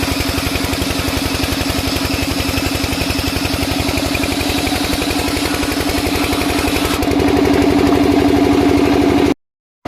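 An engine running steadily with a rapid, even beat. About seven seconds in it gets louder and its tone deepens, then the sound cuts off abruptly for the last half second.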